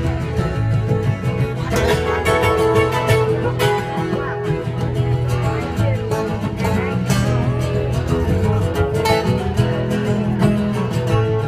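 Two acoustic guitars playing an instrumental passage of a slow folk song together, a mix of strummed chords and picked melody notes.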